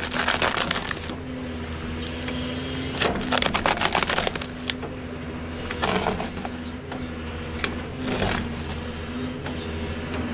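Heavy forestry machine running with a steady engine hum, broken by four short, louder bursts of noise a couple of seconds apart.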